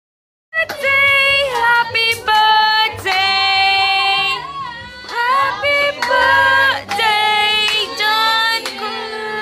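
A group of people singing together, women's and children's voices leading, with long held notes. The singing starts abruptly about half a second in, after a moment of silence.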